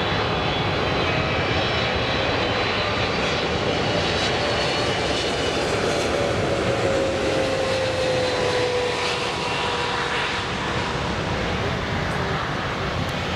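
Airliner's jet engines running loud and steady, with a whine in the middle that slides slowly lower in pitch.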